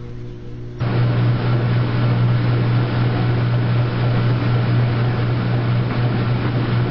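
Washing machine running: a steady electric motor hum with a loud rushing noise that starts suddenly about a second in and runs on to the end.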